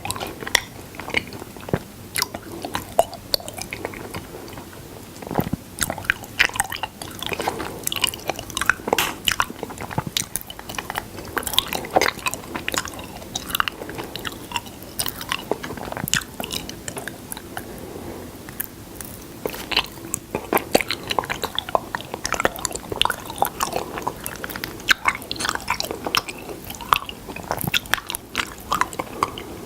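Close-miked mouth sounds of someone eating honey: wet, sticky chewing with irregular smacks and crackles, many a second.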